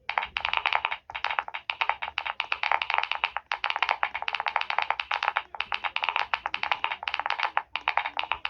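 Fast typing on a computer keyboard: rapid clacking keystrokes in quick runs, broken by short pauses about a second in, three and a half seconds in and near the end.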